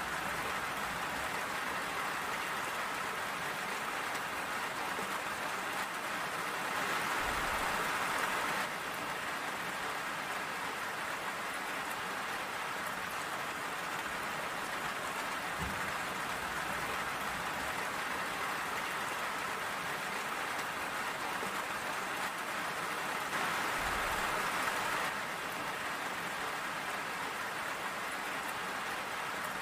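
Steady rain falling, a dense even patter, growing heavier for a couple of seconds twice.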